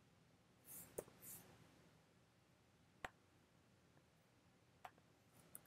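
Near silence broken by three faint computer-mouse clicks, about one, three and five seconds in.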